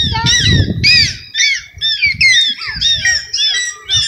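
Bottlenose dolphins calling in air with their heads out of the water: a rapid run of short, high squawking whistles, about three a second, each rising and falling in pitch. It is a vocal behaviour given on a trainer's hand signal.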